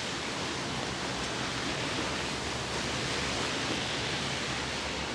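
Steady hiss of pouring rain.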